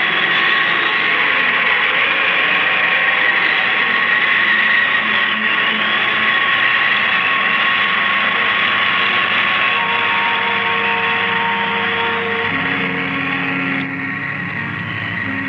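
Radio-drama sound effect of a time machine in flight: a loud, continuous electronic drone of hiss layered with steady whining tones and a warbling high pitch. About twelve seconds in, a lower steady tone comes in and the sound drops slightly in level.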